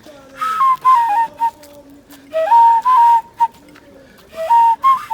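A flute playing a melody in three short phrases with pauses between, the notes stepping up and down around one high pitch.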